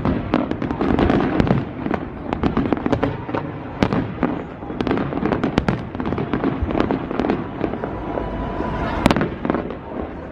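A fireworks display: aerial shells going off in quick, irregular bangs and crackles, several every second, over the murmur of a large crowd.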